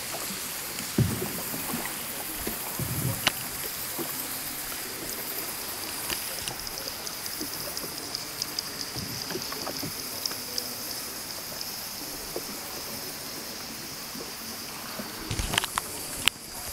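Steady rush and trickle of water around a paddled boat on an underground river, with scattered light knocks and splashes from the paddle and hull, and a cluster of louder knocks near the end.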